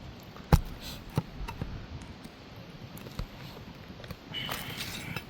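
Pry bar prying a staple out of a roof shingle with light force: a sharp click about half a second in, a few lighter ticks, and a short scraping rasp near the end as the staple works loose.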